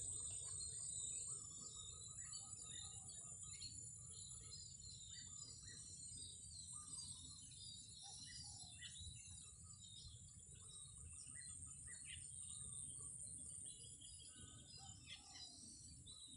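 Faint outdoor ambience: many short bird chirps scattered over a steady, high-pitched insect drone.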